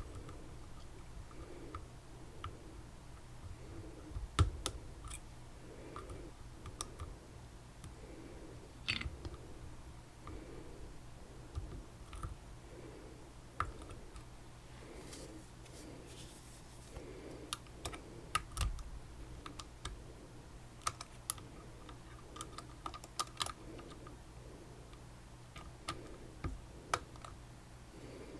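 Small, irregular metallic clicks and ticks of a lock pick and tension tool working the pins inside a Tesa TK100 lock cylinder while it is being picked.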